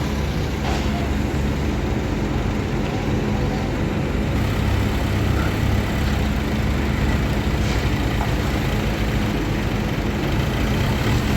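Heavy vehicle's diesel engine running steadily at a low, even idle.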